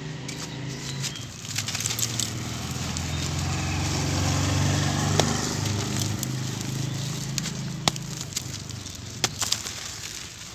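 Dry, dusty dirt clumps crushed and crumbled by hand, crackling and crunching with several sharp snaps, the loudest a little before the middle, near three quarters of the way and near the end. Under it runs a low hum that swells to its loudest about halfway through and then fades.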